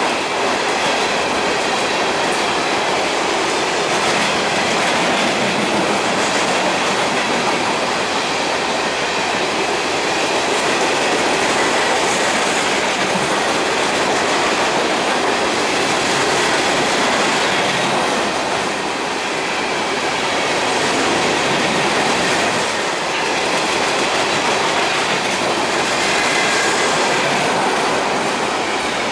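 CSX freight train of open-top hopper cars rolling steadily past close by: a continuous, loud noise of steel wheels running on the rails.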